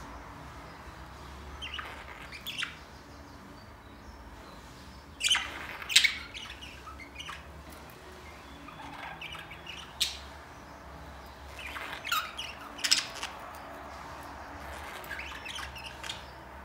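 Budgerigars chirping: short, sharp calls in scattered clusters, loudest about five to six seconds in, over a steady low hum.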